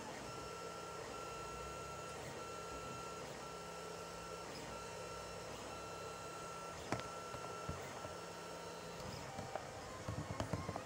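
Lulzbot TAZ 5 3D printer at work, its stepper motors giving a high tone with a lower one under it, repeated in short pulses a little over once a second as the print head traces the part, over a steady hiss. A sharp click about seven seconds in and a few knocks near the end.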